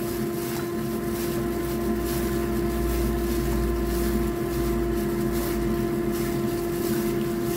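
A steady machine hum with a strong held droning tone, under soft rustling from plastic-gloved hands tossing fish fillets in cornstarch.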